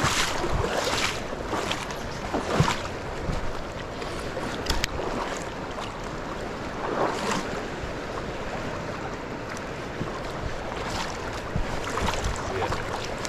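River current rushing steadily, with splashes every few seconds.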